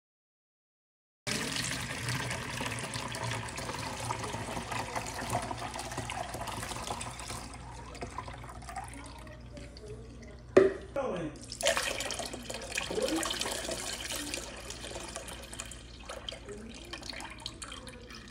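Carrot juice pouring and trickling through a stainless-steel mesh strainer into a plastic bowl, fading down after the first half. A single sharp knock comes about ten seconds in.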